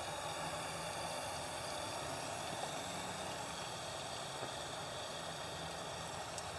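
Steady machine hum with an even hiss, unchanging in level and pitch.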